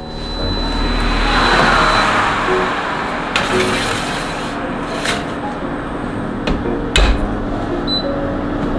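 Metal baking tray slid onto the wire rack of an Arianna countertop convection oven with its fan running, followed by three sharp clunks of the tray and oven door. A short beep from the control panel near the end.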